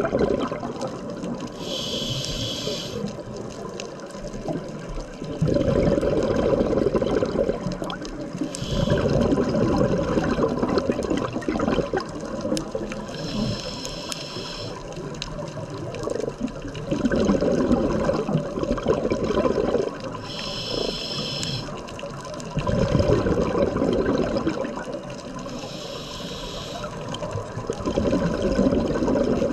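Scuba diver breathing through a regulator underwater: a short hiss on each inhale, then a few seconds of rumbling exhaust bubbles on each exhale, repeating about every five to six seconds.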